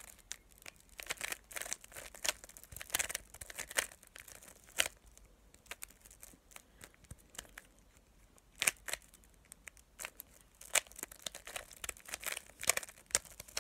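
Plastic 3x3 Rubik's cube being turned by hand: irregular clicks and scraping rattles of its layers rotating, in quick clusters with a lull in the middle.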